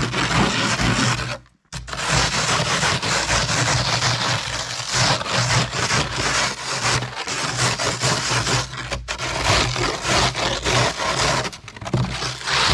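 Snow shovel scraping and pushing snow across a tabletop, a run of rough scraping strokes with short breaks about a second and a half in and again about nine seconds in.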